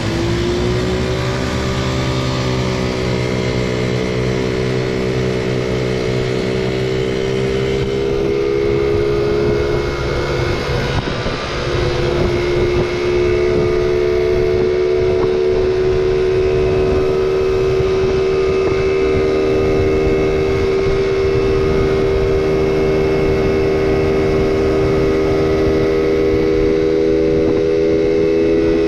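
Small motor scooter engine running steadily under way, its pitch rising in the first second as it speeds up. It drops briefly about eleven seconds in, then picks up again and holds a steady drone.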